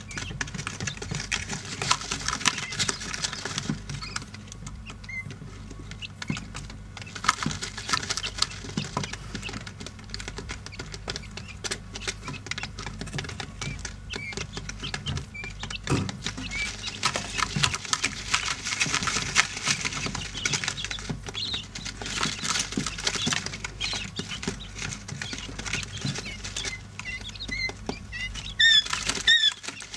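Quail chicks pecking and scratching in the litter and feed tray: a steady stream of small clicks and rustles over a low, steady hum. Near the end the chicks start peeping, short repeated calls.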